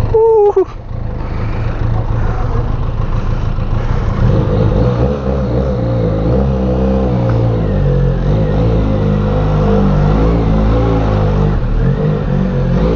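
Benelli Leoncino 500's parallel-twin engine running, its revs rising and falling in steps. A brief loud tone sounds right at the start.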